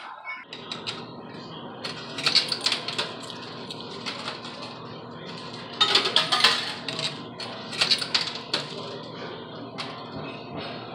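Quarters clinking in a coin pusher machine, with clusters of sharp metallic clinks about two seconds in, around six seconds and around eight seconds, over a steady background din.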